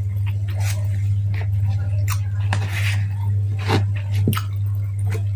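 Close chewing and mouth sounds of someone eating fried salted fish by hand, with several short sharp clicks and a brief rustly patch about halfway through. A steady low hum runs underneath.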